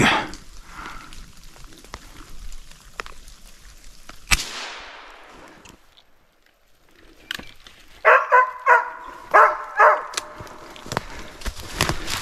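Hunting laika barking in two quick runs of about three barks each, typical of a dog barking at a squirrel up a tree. About four seconds in there is one sharp crack with a fading ring.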